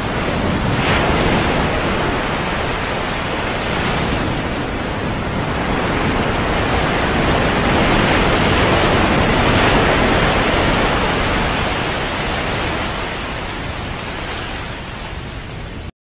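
Sea surf: waves washing in as a continuous rushing hiss that swells louder a few times and eases off toward the end.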